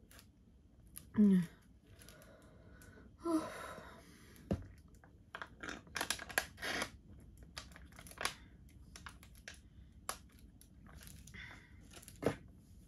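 Capri-Sun drink pouch crinkling and crackling as it is squeezed and sucked through its straw, with two short falling gurgles in the first few seconds, the first the loudest, and a sharp click near the end.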